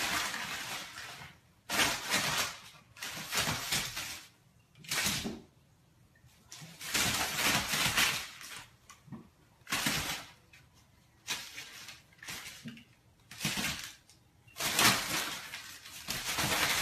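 Crumpled brown paper crinkling and rustling in irregular bursts every second or two as two kittens pounce on it and scramble across it.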